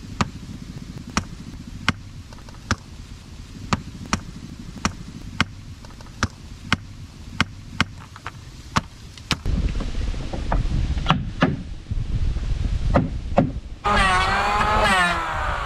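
Sharp knocks, roughly one or two a second, over a low rumble, growing rougher after about nine seconds. Near the end an electric hand planer's motor whines, wavering in pitch as it cuts into wood.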